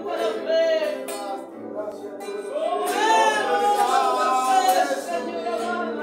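Congregational worship singing: men's and women's voices singing together, with a long held note through the middle.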